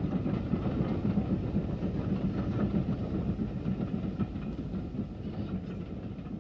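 Maunsell U-class steam locomotive hauling a train of coaches past at speed, its running and rail noise a steady rumble that grows quieter near the end as it draws away.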